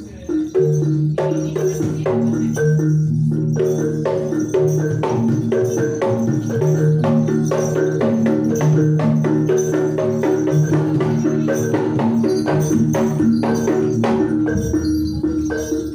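Live gamelan accompaniment for a jaranan dance: sharp kendang drum strokes over a busy, stepping metallophone melody and sustained gong tones, played loud through a sound system.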